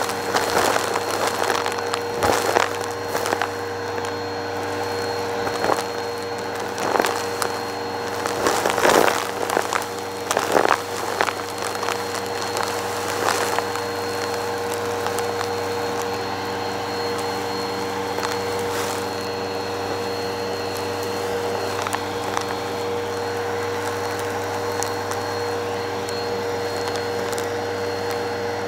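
Bissell Purple Helix vacuum running on its hose with the dusting brush tool, a steady motor hum with a high whine. For the first dozen or so seconds it sucks up a pile of dirt, lint and glitter, and the debris crackles and crunches as it goes up the hose. After that the crackling stops and only the steady suction hum remains.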